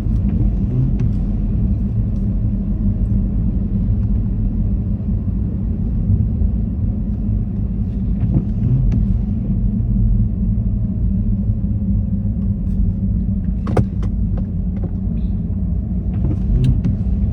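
Steady low rumble of a car being driven slowly, heard from inside the cabin, with a few sharp clicks or knocks near the end.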